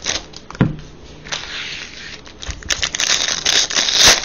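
Trading card pack wrappers crinkling and cards being handled: a couple of sharp taps in the first second and a half, then a dense stretch of crinkling and crackle in the second half.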